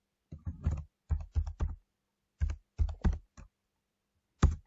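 Computer keyboard typing: about a dozen keystrokes in short bursts, then a single louder keystroke near the end.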